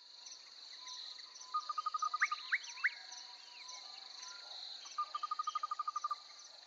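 Crickets chirping in a steady high chorus, with animal calls over it: two rapid runs of even notes, and three quick rising whistles.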